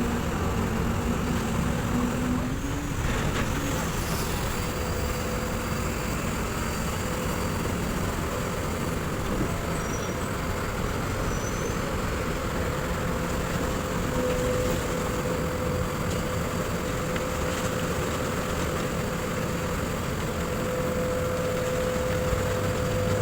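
Kobelco SK200 hydraulic excavator's diesel engine running steadily under work, with a steady whine that grows stronger in the second half.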